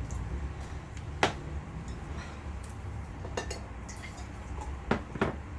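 Glassware and cutlery clinking: one sharp clink about a second in, then two quick pairs of clinks later on.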